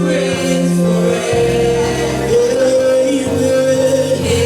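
Gospel worship song: a choir singing held notes over sustained band chords, the bass note changing about a second in and again near the end.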